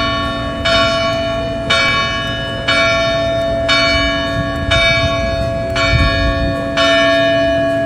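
A church bell tolling, struck about once a second for about eight strokes, each stroke ringing on into the next.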